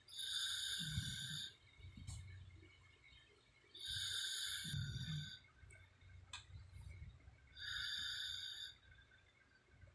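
A woman snoring in her sleep: three long snoring breaths, each over a second, coming about every four seconds in a steady rhythm.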